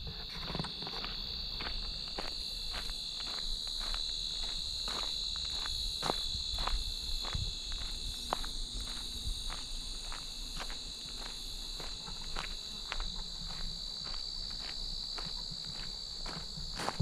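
A steady, high-pitched chorus of insects, with regular footsteps on the trail at about two to three steps a second.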